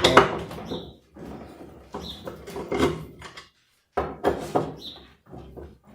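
Irregular metallic clicking and clattering of a wrench working the 8 mm bolts on a washing machine's tub housing, with a brief gap a little past halfway.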